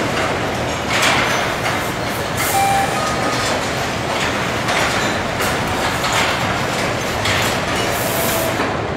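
Assembly-line noise on a truck chassis line: a steady machinery din, broken every second or so by short clanks and bursts of hiss, with a longer hiss near the end and a few brief high tones.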